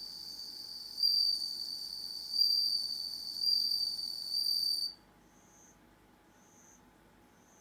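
Bell cricket (suzumushi) singing a continuous high, ringing trill that swells louder about once a second, then stops about five seconds in. Faint short high chirps follow about once a second.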